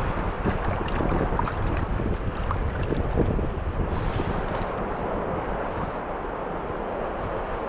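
Strong, gusty sea wind buffeting the microphone, with waves washing against the shore rocks underneath.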